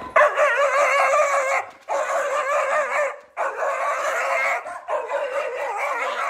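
Husky howling and whining in four long, wavering calls, each about a second and a half, with short breaks between them.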